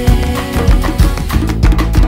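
Live band music: a steady percussion beat over bass and acoustic guitar.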